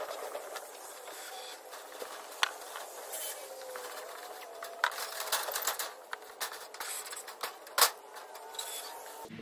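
Irregular clicks and light clinks of metal gazebo roof parts and screws being handled, with one sharper click a little before the end.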